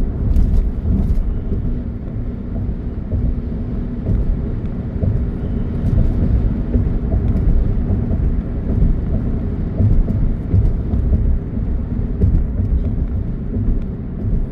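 Steady low road and wind noise inside a moving car's cabin, the level rising and falling with gusty crosswinds.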